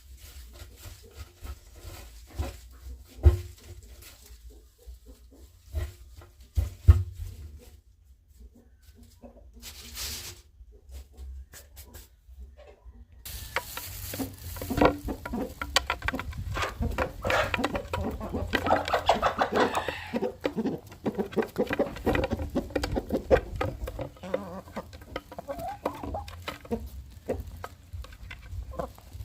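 Domestic chickens clucking and pecking at food, with many short sharp taps. The first dozen seconds are sparse; after that it suddenly becomes louder and busier, with a flock clucking together.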